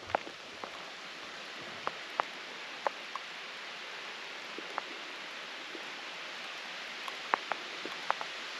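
Steady rain hissing, with scattered single drops ticking sharply at irregular moments.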